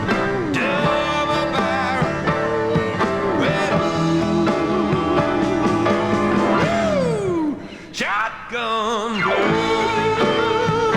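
Country-rock band playing an instrumental break, a lead guitar bending and sliding notes with vibrato over the rhythm section. The music drops away for a moment about eight seconds in, then comes back.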